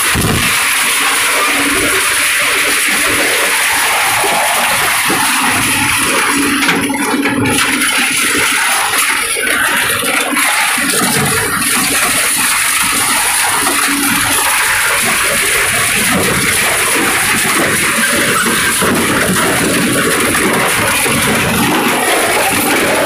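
Twin-shaft scrap metal shredder at work on steel roofing and profile scrap: a steady, loud hiss of metal being torn and scraped, with no separate bangs.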